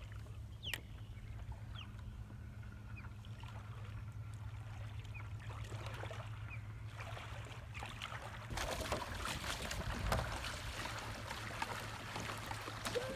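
Water sloshing and trickling around a stand-up paddle board in shallow water. About eight and a half seconds in it gets louder and splashier as the board is paddled along.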